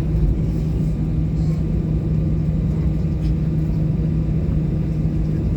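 Steady low rumble of a vehicle's running machinery, with a constant low hum, heard from inside it.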